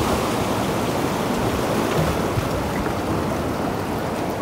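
Sea surf washing over and around shore rocks: a steady rush of water.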